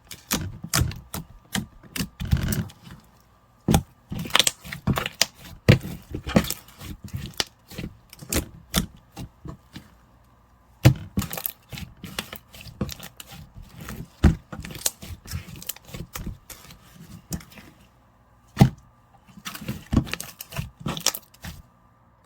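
White slime being squished, folded and poked by hand, giving irregular clicks and pops in quick clusters with a few brief pauses.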